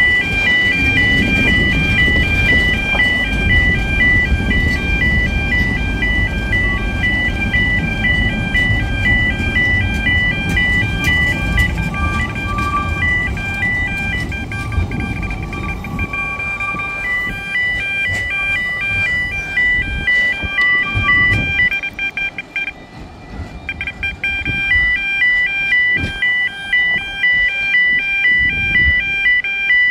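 Level crossing warning alarm sounding a rapidly pulsing electronic tone. It drops out for a second or two near the end, then resumes: a glitching alarm. For the first twenty seconds or so, passing train carriages rumble over the crossing underneath it.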